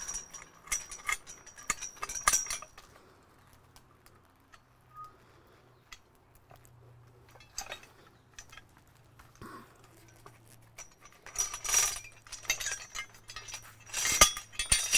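Grade 70 steel logging chain clinking and rattling against the puller's steel handle as it is cinched into the locking notches and the lever is worked. There are bursts of jangling in the first couple of seconds and again in the last few seconds, with only scattered clinks in between.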